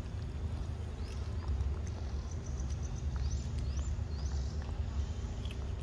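A young macaque eating ripe mango close to the microphone, with small wet chewing and smacking sounds over a steady low rumble. A few short rising bird chirps sound in the background about three seconds in.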